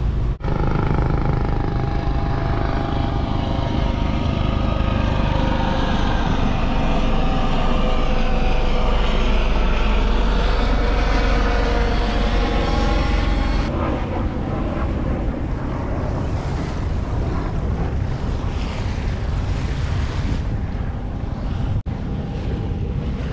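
A helicopter flying past over the sea, a loud drone with a low rumble whose pitch drifts slowly. About 14 s in it gives way abruptly to wind and water rushing past the boat.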